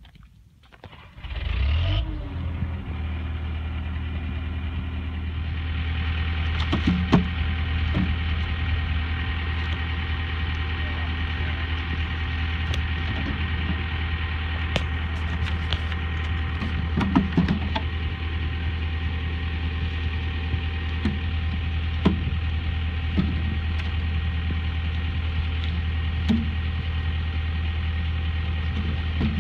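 Compact track loader's engine running steadily at idle after coming in about a second and a half in, with several loud wooden knocks as logs are dropped and rolled onto its forks.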